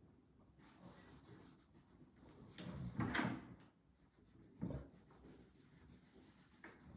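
A felt-tip marker rubbing and scratching on paper as a drawing is coloured in on a table. There is a louder scrape about three seconds in and a softer one near five seconds.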